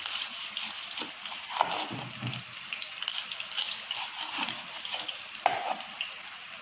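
A knife cuts through crisp deep-fried spring rolls on a plastic cutting board. The fried wrapper gives a fine crackling crunch, with a few knocks of the blade against the board, about a second in, again shortly after, and near the end.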